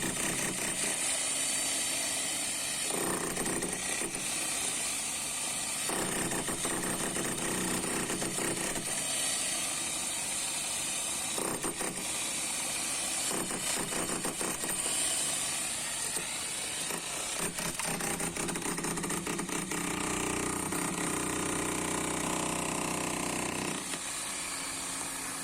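Electric power tool running steadily under load with a high whine, its pitch shifting a few times as it works into a masonry wall.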